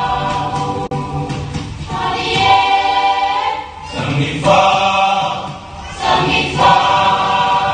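Group of voices singing a Polynesian song together to music, in sung phrases with short breaks about four and six seconds in.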